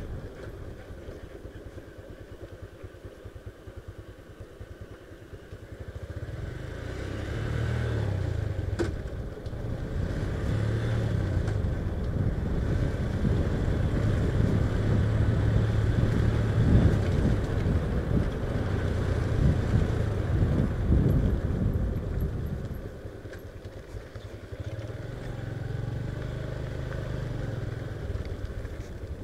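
Motorcycle engine running as the bike is ridden. The engine gets louder about a quarter of the way in, eases off briefly near the end, then picks up again.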